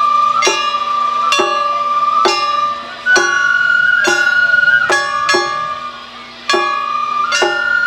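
Shamisen plucked in sharp, slow notes, about one a second, over a held high tone that shifts pitch a few times.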